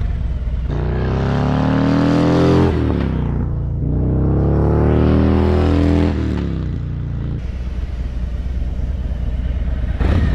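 2022 Harley-Davidson Road Glide Special's Milwaukee-Eight 114 V-twin on its stock exhaust, accelerating away through the gears. The engine pitch climbs, drops at a shift about three seconds in, and climbs again. It then runs lower and steadier, and comes back louder near the end as the bike returns.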